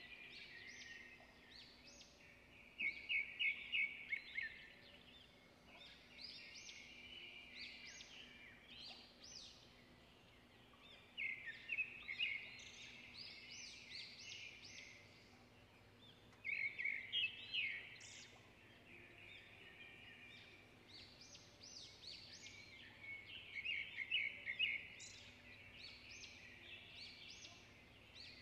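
Birdsong: a small bird singing short phrases of rapid high chirps and trills, repeating every few seconds over faint background hiss.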